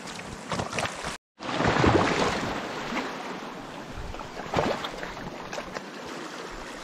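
Sea water washing among shoreline rocks, with wind buffeting the microphone. The sound cuts out briefly just after a second in, then comes back with a louder surge, and a few light knocks are heard.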